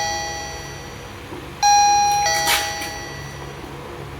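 Costar T300 doorbell playing its electronic ding-dong chime through a newly replaced speaker, now sounding clearly where it had been silent. The last notes of one chime fade early on. A second ding-dong, a high note then a lower one, rings out about one and a half seconds in and fades away.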